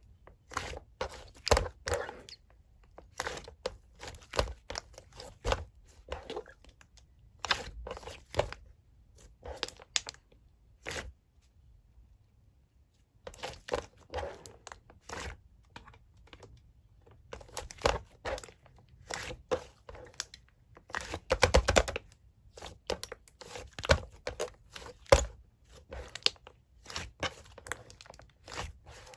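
Hands squishing and pressing slime, making runs of sticky clicks and crackling pops, with a pause of about two seconds near the middle.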